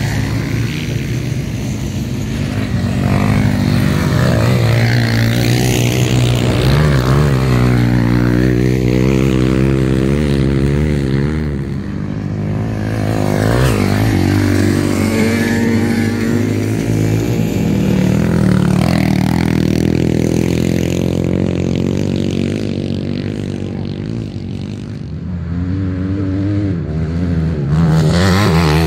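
Off-road dirt bike engines revving hard on a dirt course, the engine pitch rising and falling repeatedly with the throttle as the bikes ride past.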